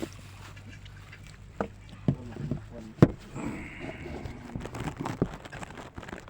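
A few sharp knocks, the loudest about three seconds in, over faint background voices.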